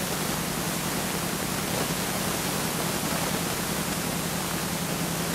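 Steady, even hiss with a low steady hum underneath and no distinct events: recording noise of old Video 8 camcorder footage.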